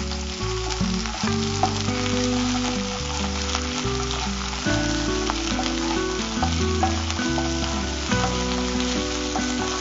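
Chopped onions and ginger-garlic paste sizzling in hot oil in a kadai, with a wooden spatula stirring and scraping the pan, over quiet background music.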